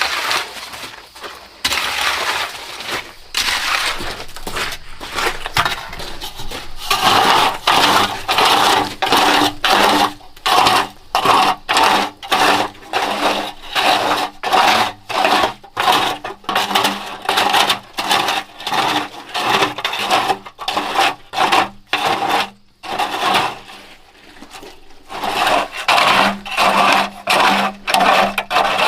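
Repeated scraping strokes of a hand tool at a steady pace, roughly one to two a second, with a short pause near the end.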